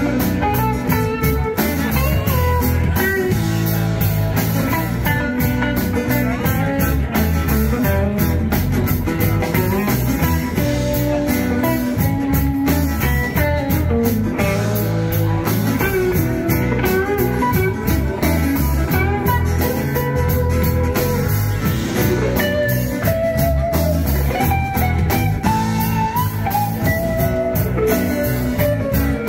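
Rock band playing live, an instrumental passage of electric and acoustic guitars over bass and drum kit.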